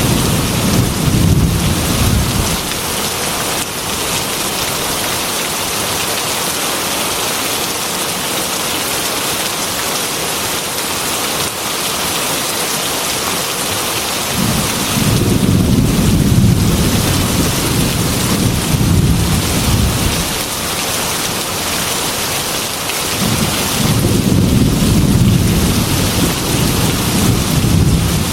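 Heavy rain beating on a glass window as a steady hiss, with rolls of thunder rumbling low three times: one fading about two seconds in, one lasting about five seconds mid-way, and one building near the end.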